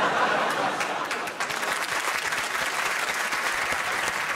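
Studio audience applauding: many hands clapping at a steady, full level after a quick swell just before.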